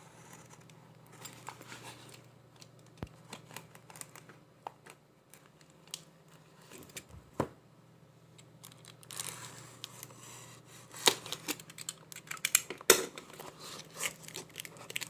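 Packaging of a computer memory kit being handled and torn open: scattered clicks and taps at first, then from about nine seconds in a busier stretch of crinkling and tearing with sharp snaps.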